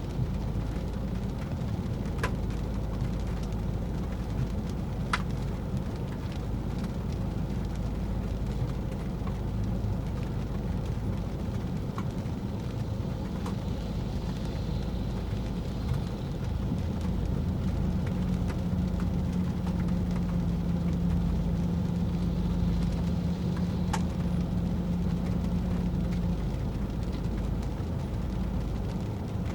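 Steady low rumble of a car driving on wet roads in the rain, with a few sharp ticks. A steady low hum comes in partway through and stops a few seconds before the end.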